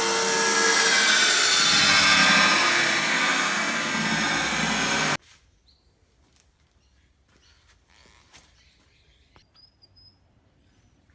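Table saw blade cutting 12mm aluminium plate: a loud, harsh, grinding cutting noise that stops abruptly about five seconds in, leaving near quiet with a few faint clicks.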